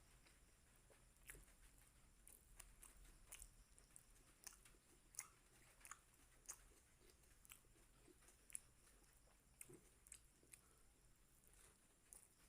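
Faint, close-up chewing of food: soft wet mouth clicks and smacks at an irregular pace.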